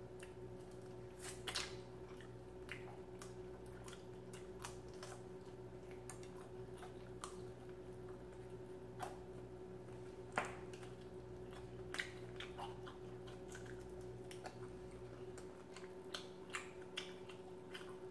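Close-up eating sounds of fried chicken wings: wet chewing and lip smacks, with scattered short sharp clicks as the meat is pulled apart by hand and bitten, over a steady faint hum.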